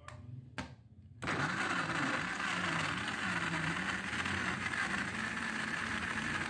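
Countertop electric blender switched on about a second in, then running steadily as it purees frozen raspberries with milk.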